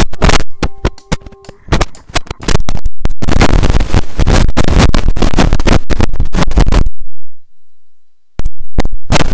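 A handheld microphone is knocked and scraped against piano keys, sounding a few short piano notes among loud distorted thumps. A long stretch of harsh, clipped microphone-handling noise follows. It cuts off suddenly about seven seconds in, and after a second of silence the loud crackle starts again.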